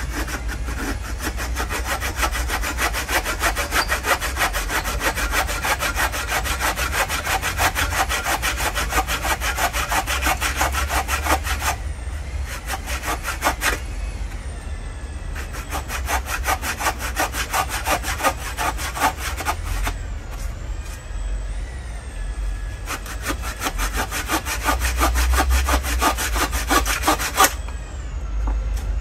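Hand saw cutting across a wooden plank in steady back-and-forth strokes, with short breaks about twelve seconds in and again around twenty seconds, the sawing stopping shortly before the end.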